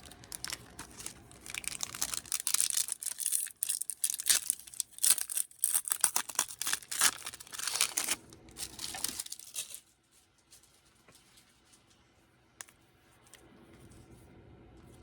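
Crinkly plastic or foil wrapping of a Pokémon card booster pack being handled and torn, a dense crackling for about ten seconds. After that it goes much quieter, with only a few light clicks.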